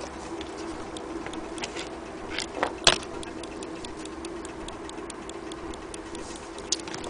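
Elliott mantle clock's mechanical movement ticking steadily, about three to four ticks a second, with a louder knock about three seconds in.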